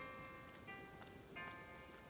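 Soft, quiet background music of held chords that change twice, with faint light ticks over it.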